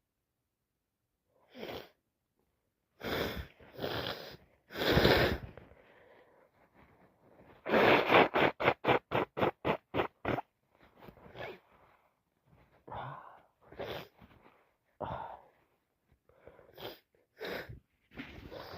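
A person with a wet head cold sneezing: a few catching breaths build to a loud sneeze about five seconds in. A fast run of short breathy pulses follows, about six a second, then several smaller breaths and bursts.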